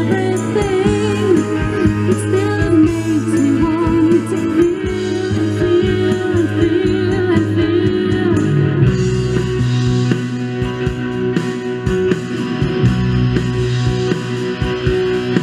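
A song with singing and guitar playing through a Realistic STA-64 stereo receiver into a loudspeaker, as a listening test of the receiver's audio stages. The music cuts off suddenly at the very end.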